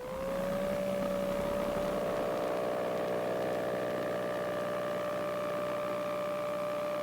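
KR-2S homebuilt's Corvair-conversion aircraft engine being throttled up for a touch-and-go takeoff: its tone rises over the first second, then holds steady at climb power, heard through the cockpit intercom audio feed.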